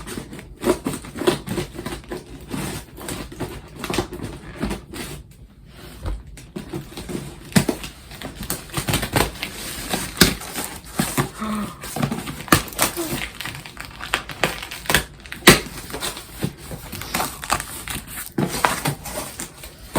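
Hands opening a cardboard shipping box: irregular crinkling and rustling of packing material, scraping cardboard and quick sharp clicks and knocks.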